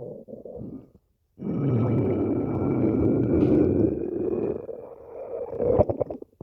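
Stomach growling: a short rumble falling in pitch at the start, a brief pause, then one long, loud rumble of about four seconds that tails off near the end.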